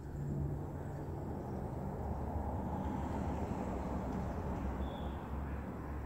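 Low rushing noise of a vehicle going by on a nearby road, coming up at the start, holding steady and easing off near the end. A brief high chirp sounds about five seconds in.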